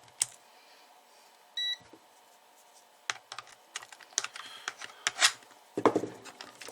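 Scattered clicks and knocks of small tools and test leads being handled on a workbench, with one short electronic beep about one and a half seconds in.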